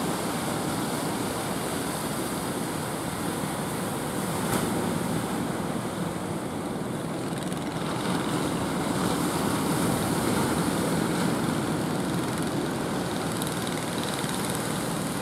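Steady rumble of breaking surf mixed with a fishing boat's engine running as the boat pushes through the waves, growing a little louder about halfway through.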